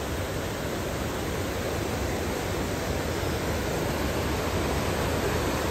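Steady rush of a mountain stream cascading over boulders in a small waterfall.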